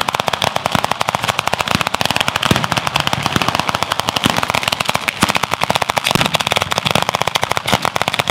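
Ground-level firecracker battery of the batteria alla bolognese type, its charges going off in a rapid, unbroken chain of sharp bangs, many each second.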